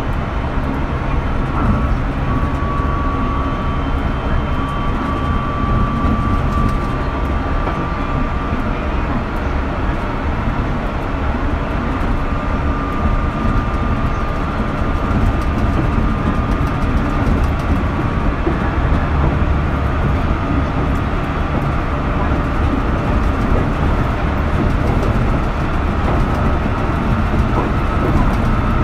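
JR Shikoku 8000 series electric train running, heard from on board: a steady rumble from the wheels and running gear. Over it sits a faint whine that slowly rises in pitch, from its Toshiba GTO inverter drive.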